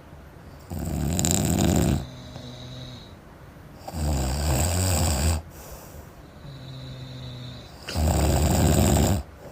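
A sleeping person snoring heavily: three loud, rasping snores about three and a half seconds apart, with quieter breathing sounds between them.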